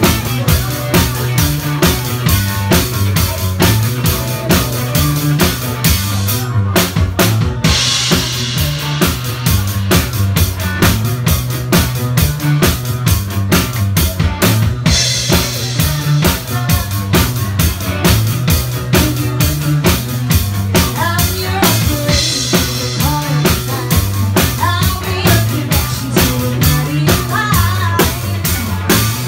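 Live band music dominated by the drum kit: kick and snare keep a steady beat over a repeating bass line, with electric guitar above. Twice, about 7 and 15 seconds in, the beat stops for a moment and a cymbal crash rings out.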